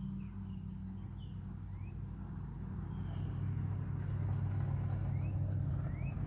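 Yamaha Raptor 700's single-cylinder engine idling steadily, getting a little louder about halfway through.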